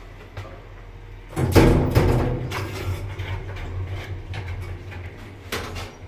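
2001 Lift Katowice passenger lift's doors closing with a loud bang about a second and a half in, followed by a steady low hum and a sharp click near the end.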